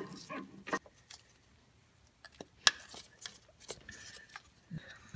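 Scattered light clicks and rattles of plastic wiring-harness connectors being handled at a T56 transmission, with one sharper click a little under three seconds in.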